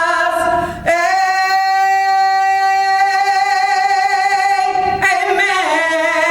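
A solo female voice singing a gospel song a cappella, holding long notes with vibrato. There is a quick breath about a second in, and the pitch steps down near the end.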